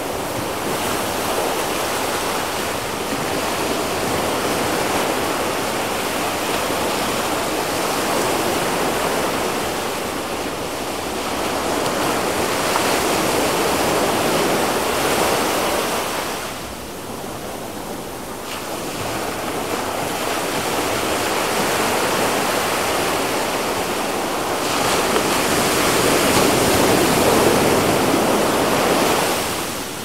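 Small waves breaking on a sandy beach, with foamy surf washing up the shore in a continuous rush that swells and ebbs. There is a lull about halfway through, and the loudest wash comes near the end before it drops off.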